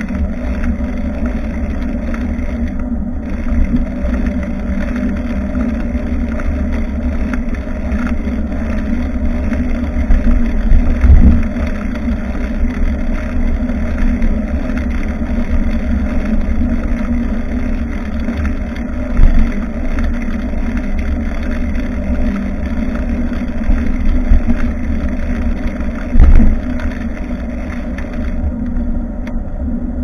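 Wind rumbling on the microphone and the road noise of a bicycle being ridden, with a steady low hum under it and three louder thumps several seconds apart.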